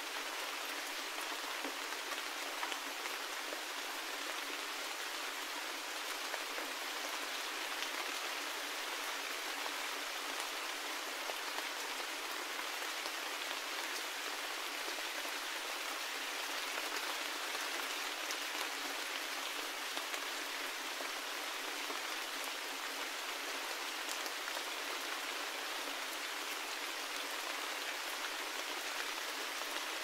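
Steady forest rain: an even hiss of many falling drops with scattered individual drop ticks.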